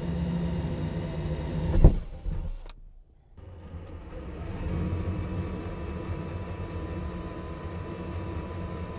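Cordless drill running a hole saw through cedar boards, the motor and cutting teeth running steadily. A sharp knock comes just under two seconds in, then a short break, and the drilling resumes with a thin steady whine.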